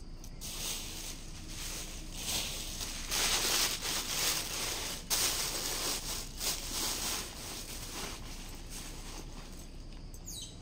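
Plastic bag crinkling and rustling as it is pulled and crumpled out of the inside of a handbag, in uneven bursts that are loudest in the middle.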